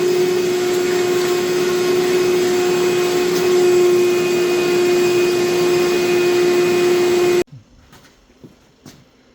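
Shop vacuum running at a steady pitch, switched off suddenly about seven and a half seconds in; a few faint clicks and taps follow.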